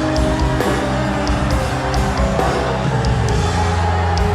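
Background worship music: held chords that change about half a second in and again past two seconds, with a light tick every half second or so.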